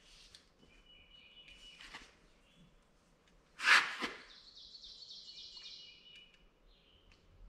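Quiet handling noise of a tape measure and marker being worked along a foam sheet, with one short, loud scratchy burst a little before the middle. Faint, steady, high chirp-like tones come and go twice.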